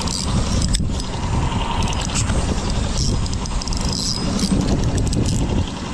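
Spinning fishing reel being cranked to bring in a hooked fish, with light clicks. Both sit under a steady low rumble, which is the loudest thing heard.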